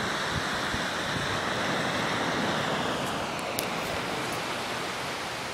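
Ocean surf washing onto the beach, a steady wash of noise, with a few faint clicks about three to four seconds in.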